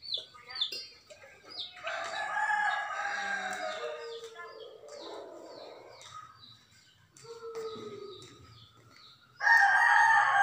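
Roosters crowing several times, long calls that fall in pitch, the loudest near the end; quick bird chirps at the start.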